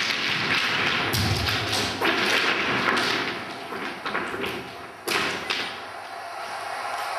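Thuds and taps over a dense rustling, scraping noise, with sudden louder strokes about a second in, two seconds in and again around five seconds in.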